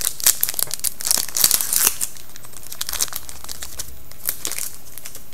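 Foil wrapper of a hockey trading-card pack being torn open and crinkled by hand, loudest in the first two seconds, then quieter crinkles.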